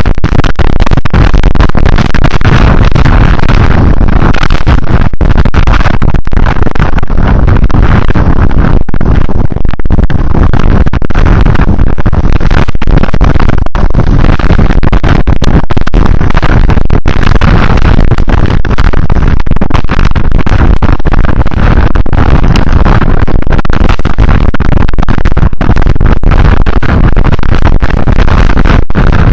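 Wind and rain noise battering a moving microphone, overloaded and distorted, with brief dropouts.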